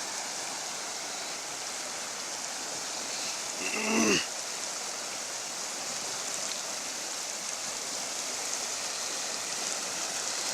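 Floodwater of the swollen Ichhumati river rushing steadily. A brief pitched sound rises over it about three and a half seconds in and drops away.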